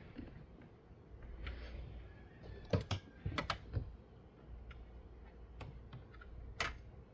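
Sharp clicks and knocks of hard plastic parts being handled behind a car's trunk side trim at the taillight housing, a quick cluster about three seconds in and one more near the end.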